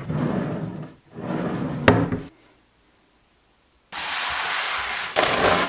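Wooden drawers of a newly assembled pine chest sliding on metal runners, twice, each ending with a sharp knock as it shuts. After a short silence comes a steady rushing noise for nearly two seconds.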